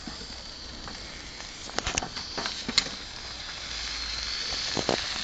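Beer sizzling and hissing as it bubbles out of a sealed beer can heating on a barbecue, a sign of pressure building inside the can. A few sharp crackles and pops come about two seconds in, near three seconds and again near the end.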